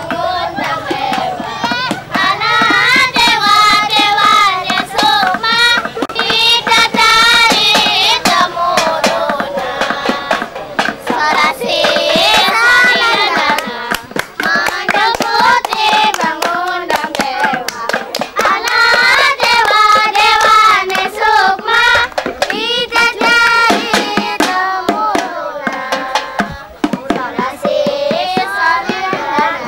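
Voices singing a wavering, ornamented song together to dense hand clapping: the sung accompaniment of a Javanese sintren dance.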